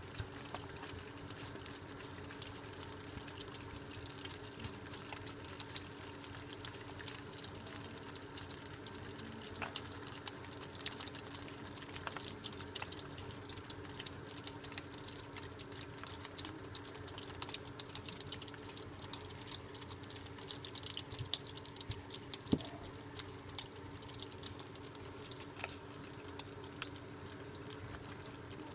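Several juvenile Virginia opossums chewing banana with open mouths: a dense run of quick, wet smacking and clicking sounds. A steady low hum lies under it.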